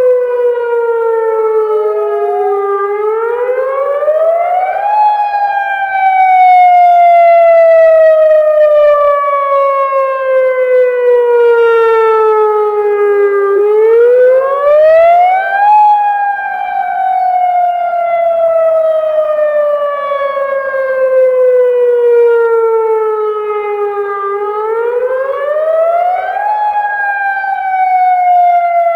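Federal Signal Modulator 6048 outdoor warning siren sounding its Attack wail. The pitch climbs quickly over about two seconds, then sinks slowly over about eight, three times over.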